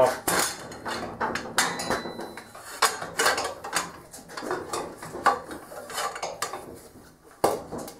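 Steel tire irons and a cheater bar clinking and scraping against each other and the wheel rim as a motorcycle tire is levered off, in irregular metallic clanks and knocks, with a louder knock near the end.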